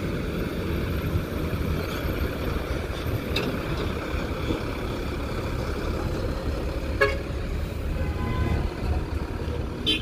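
Steady low rumble of motor vehicles, with a short horn toot near the end.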